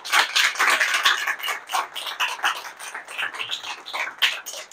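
Audience applause: many hands clapping, growing quieter and thinning out as it goes.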